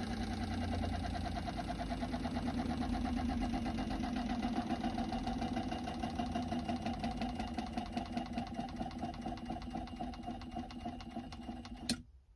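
Pentair diaphragm water pump running with a fast, even pulsing buzz, then cutting out abruptly with a click about twelve seconds in: its pressure switch shuts it off as the water system reaches pressure.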